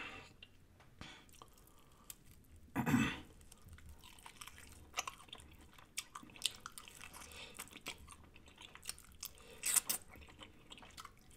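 Close-miked chewing of crispy fried food: a string of small crunches and wet mouth clicks, with one louder sound about three seconds in.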